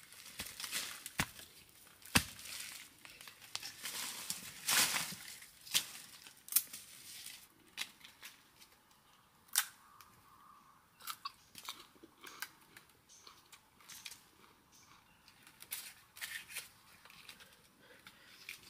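A digging tool strikes into soil at the base of a bamboo shoot with a few sharp knocks. Then the shoot's husk sheaths are torn and peeled off by hand, crackling, among rustling leaf litter.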